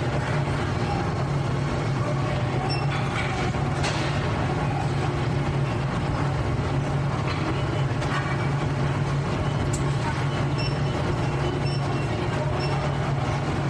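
Factory machinery sound: a steady low mechanical hum with a few short, sharper noises on top now and then.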